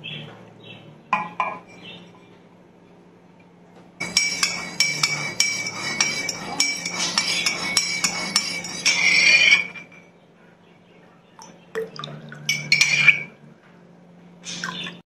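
A metal teaspoon stirring sugar into tea in a mug, clinking rapidly against its sides for about six seconds. A few more clinks and taps of the spoon follow near the end.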